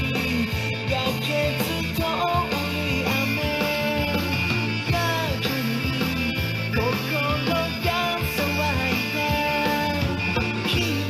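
Rock song playing, with a sung melody over electric guitar, bass and drums.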